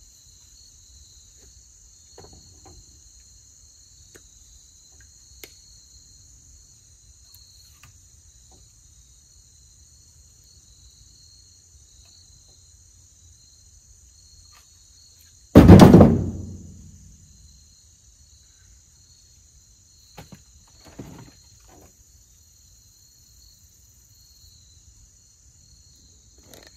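Insects trilling steadily, with one loud, sudden thunk about halfway through that dies away within a second, then a couple of fainter knocks a few seconds later.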